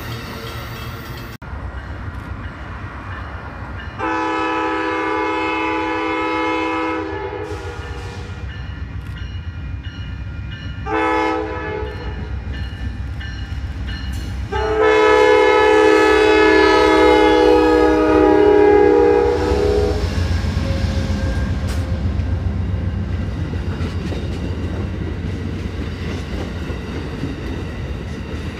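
Amtrak P42DC diesel locomotive's Nathan K5LA five-chime horn sounding three blasts, long, short, then long, over the low rumble of the approaching train. After the last blast the locomotives and bilevel passenger cars pass close by with a steady rumble and wheel clatter.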